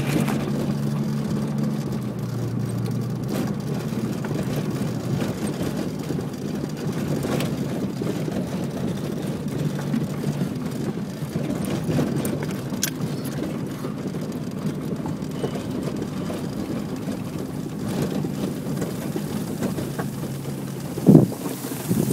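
Car engine running at low revs as the car moves along, its note dropping about two seconds in, over a steady rush of wind-blown noise from the sandstorm. A brief, loud rustle or bump comes near the end.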